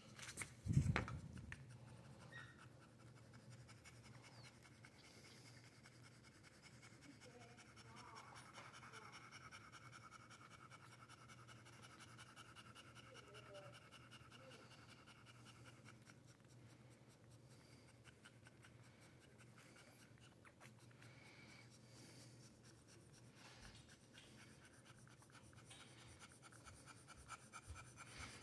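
Mostly near silence: soft rubbing and rustling against a faint steady hum, with one brief louder bump about a second in.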